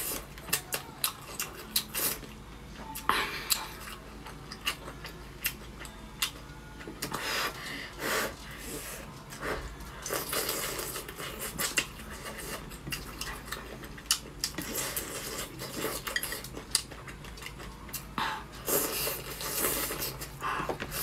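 Chopsticks clicking and scraping irregularly against a metal hot-pot pan and glass dipping bowl, mixed with chewing of hot-pot food.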